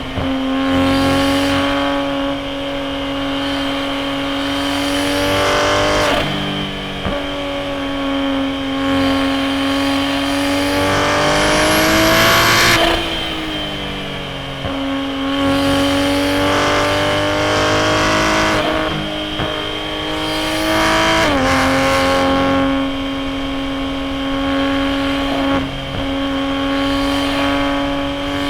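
BMW B58 turbocharged inline-six of an A90 Toyota Supra, breathing through a straight-piped titanium single-exit exhaust, under load on a winding road. The engine note climbs steadily, then drops sharply at each shift or lift several times, and is at its highest and loudest about halfway through.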